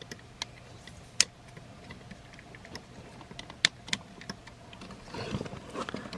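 Plastic parts of a transforming robot toy clicking and snapping as they are unpegged and moved by hand: scattered light clicks with two sharper snaps, one about a second in and one past the middle, and handling rustle near the end.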